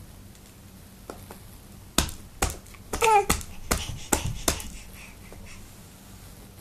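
Baby's hands slapping and patting a hardcover board book on a rug: about seven sharp slaps over two and a half seconds, starting about two seconds in.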